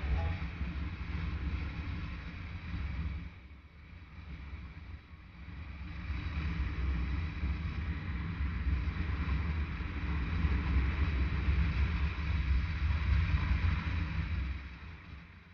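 Adventure motorcycle riding a gravel road: a steady low engine rumble under wind noise on the microphone. It eases off for a couple of seconds about three to four seconds in, picks up again, and fades out near the end.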